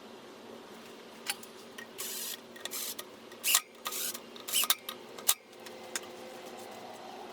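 Metal tools and parts being handled: several sharp clinks and short rattles between about one and five and a half seconds in, over a steady low hum.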